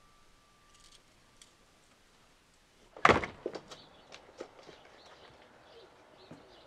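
A front door is flung open with one loud thud about three seconds in, followed by faint bird chirps.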